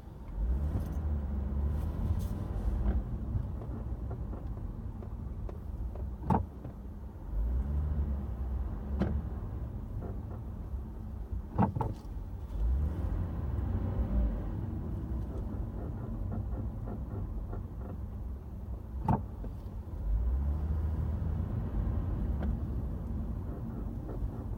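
A Lexus IS with a steady low rumble and four sharp knocks several seconds apart, the loudest sounds here. These knocks are the unwanted noise still present after the car was repaired.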